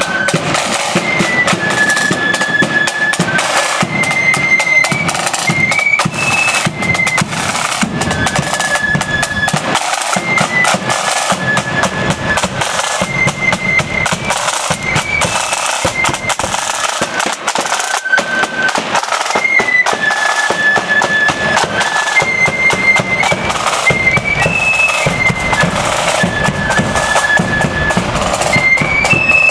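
Marching flute band playing a tune: flutes carry a high melody over the steady beating of side drums and a bass drum.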